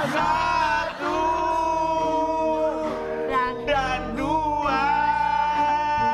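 Two men singing long held notes together in two voices, over a low steady backing tone, with short breaks about a second in and about three seconds in.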